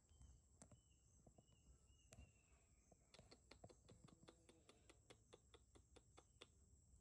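Near silence: faint outdoor background with a steady high tone, a few faint short chirps in the first half, and a run of quick faint ticks, about five a second, in the second half.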